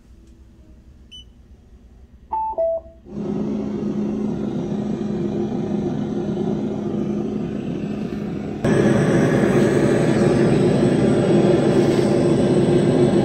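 Engine-sound simulator speaker on an electric kickscooter. Two short beeps about two and a half seconds in, then a synthetic motor drone starts and holds steady. Near the nine-second mark it jumps abruptly louder and fuller.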